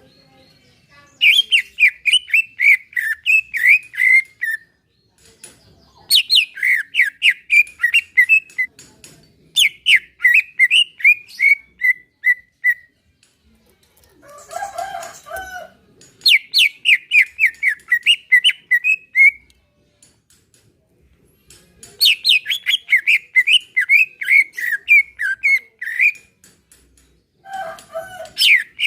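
Green leafbird (cucak ijo) singing: phrases of about three seconds made of quick, repeated, downward-slurred notes, with short pauses between them. Twice a shorter, lower, rougher call breaks in, about halfway through and near the end.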